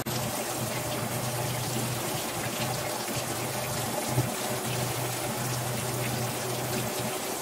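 Bathtub tap running steadily: a constant rush of water, with a low hum underneath.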